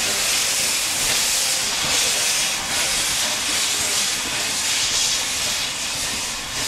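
Steam locomotive, USATC S160 No. 5197, moving off with its cylinder drain cocks open. Steam hisses loudly and steadily, pulsing roughly once a second.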